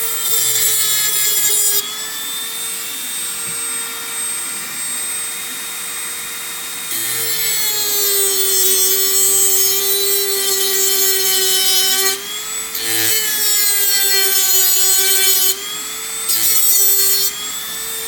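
Dremel rotary tool running at high speed, its cutting wheel grinding through the tabs on a lithium-ion battery pack. The motor's steady whine drops in pitch whenever the wheel bites, with hissing grinding noise in several passes. It starts to spin down at the very end.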